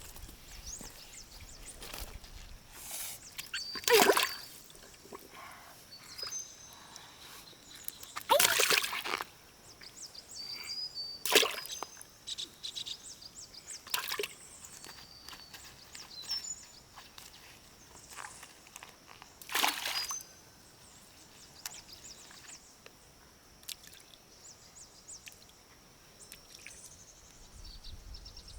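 Water sloshing and splashing in short irregular bursts, loudest about four, nine and twenty seconds in, with thin high chirps in the background.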